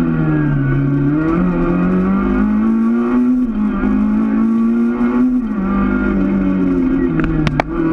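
Peugeot 206 rally car's engine heard from inside the cabin under hard acceleration, revs climbing and then dropping at upshifts about three and a half and five and a half seconds in. A few sharp clicks near the end.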